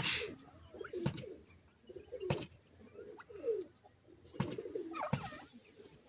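Soft, low cooing calls from a game bird: short sliding notes in small groups every second or so. A few sharp knocks or bumps are mixed in, the loudest right at the start.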